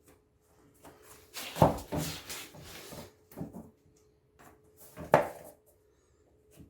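A vinyl floor plank being worked into place: a sharp knock about one and a half seconds in, scraping and rubbing after it, and another sharp knock near five seconds.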